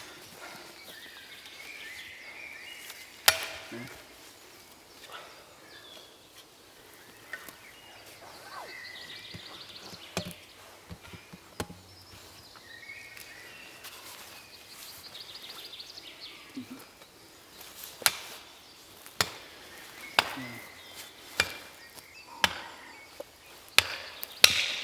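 Axe chopping wood: a few scattered strikes at first, then a run of sharp blows about once a second near the end.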